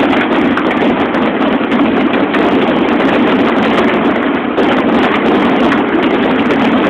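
Dense, continuous barrage of fireworks, a rapid crackle of many small bursts with no breaks.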